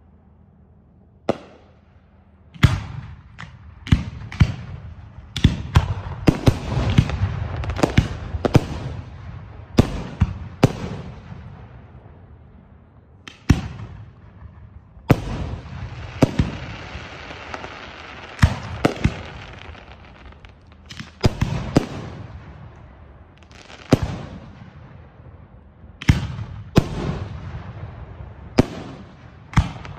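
Aerial firework shells bursting in a display, sharp booms coming thick and fast for the first ten seconds or so, then a stretch of steady hiss, then more booms at wider spacing.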